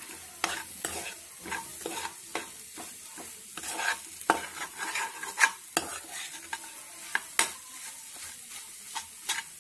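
A stainless slotted spoon stirs and scrapes scrambled egg masala around a non-stick kadai, with irregular scrapes and taps against the pan. Under them the egg fries with a light sizzle.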